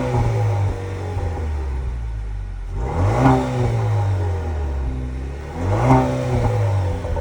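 2023 Chevrolet Camaro RS engine with its stock exhaust, revved in two quick throttle blips about three seconds apart. Each time the revs climb sharply and then slowly fall back toward idle.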